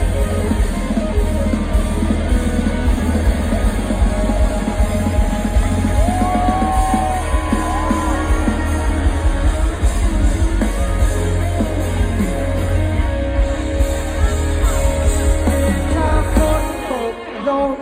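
Live rock band playing with a singer, with drums and electric guitar; the sound drops briefly near the end.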